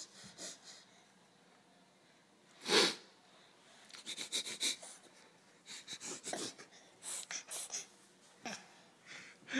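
Baby sniffling: one strong sniff about three seconds in, then runs of quick, short sniffs.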